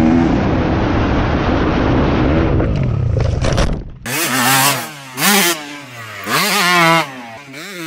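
Pit bike engine at full throttle with heavy wind rush over the helmet-mounted microphone, its pitch climbing near the end of the run. About four seconds in it cuts to three short, sharp engine revs that drop back to a wavering idle.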